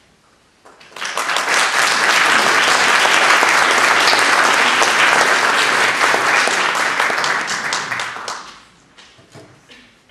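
Audience applauding: the applause breaks out about a second in, holds steady, and dies away about eight seconds in, leaving a few last scattered claps.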